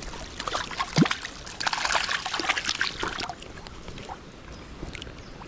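A hooked wild brown trout thrashing and splashing at the river surface as it is grabbed by hand, a flurry of splashes with one sharp plop about a second in, settling to quieter water just after three seconds.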